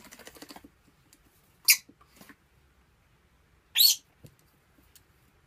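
A small parrot giving two short, shrill squawks about two seconds apart. Before them, in the first half-second, there is a quick run of light ticks.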